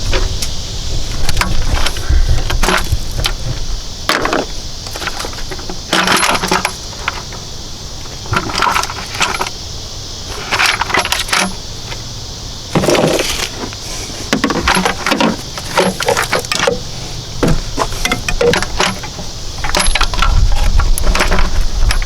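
Repeated light metallic clinks, clatters and scrapes of hand tools and metal engine parts being handled, over a steady high hiss.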